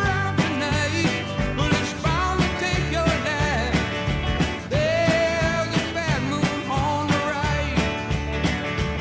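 Rock music with a sung vocal line over bass, guitar and a steady drum beat.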